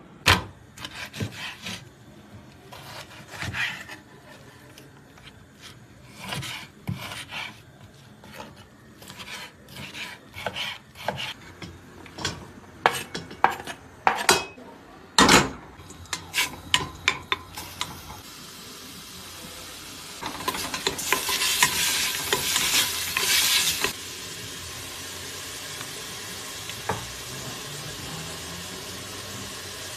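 A run of knife taps and scrapes on a wooden cutting board as cubed meat is cut and pushed into a pot, then the meat sizzling in hot oil, loudest for a few seconds past the middle before settling to a quieter steady hiss.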